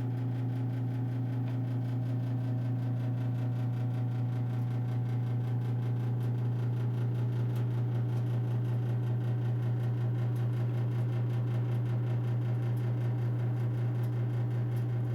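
Old gas bedroom heater running with a steady low hum.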